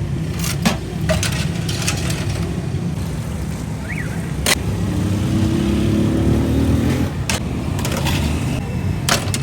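Street ambience dominated by a steady low motor-vehicle engine rumble, with a scatter of sharp clinks and knocks throughout.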